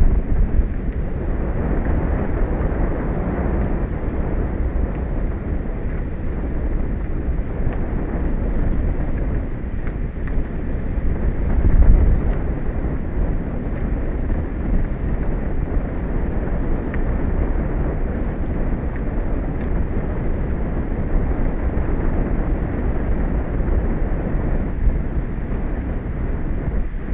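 Steady rushing wind buffeting an exposed outdoor microphone, with stronger gusts at the start and about twelve seconds in.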